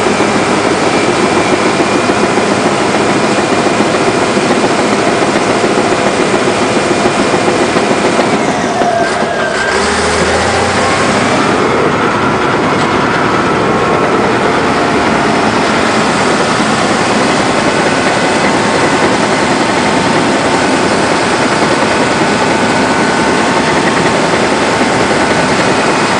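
Caterpillar D7H crawler dozer's diesel engine running loud and steady, heard from the operator's seat, with a high whine over the engine noise. About eight seconds in the whine drops in pitch and the sound briefly eases, then the whine climbs back within a few seconds.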